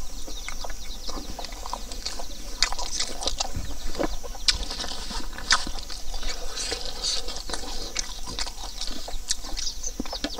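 Wet chewing and lip-smacking of a man eating rice and pork ribs by hand: a dense, uneven run of short smacks and clicks.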